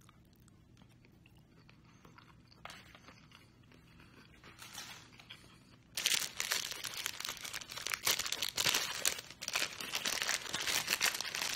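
Takeout packaging crinkling and rustling as it is handled, a dense crackling that starts suddenly about halfway through and keeps going.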